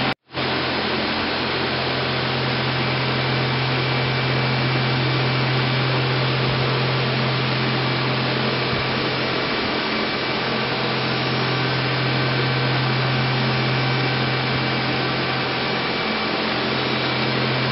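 Steady whirring hiss over a strong low hum from a powered-up Mazak VTC200C vertical machining centre idling.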